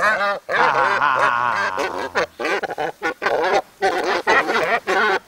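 Several tame fishing cormorants calling over one another, honking. There is one long wavering call about half a second in, followed by many short, choppy calls.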